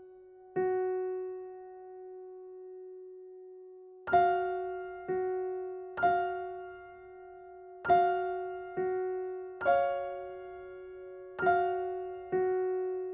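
Slow, quiet piano music: single notes struck one at a time, each ringing out and fading. After one note near the start there is a pause of about three seconds, then notes come about once a second.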